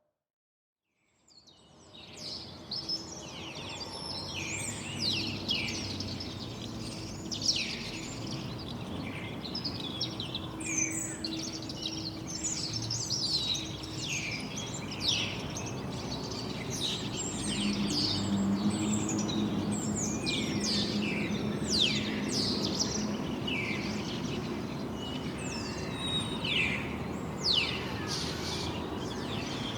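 Dense chorus of small songbirds, many short falling chirps overlapping, fading in after a second of silence, over a steady low background rumble.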